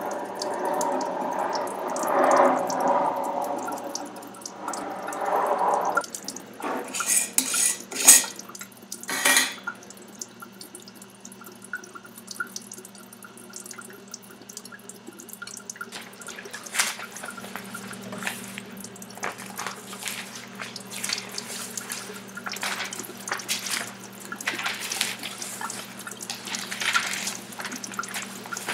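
Water running and splashing for the first few seconds, then scattered drips and small clinking taps.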